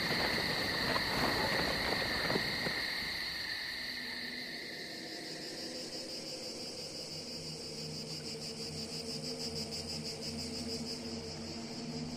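Quiet cricket-like chirring, steady and high, with a few crisp clicks in the first couple of seconds. About five seconds in, the chirring turns into a pulsing high trill over soft, sustained low tones.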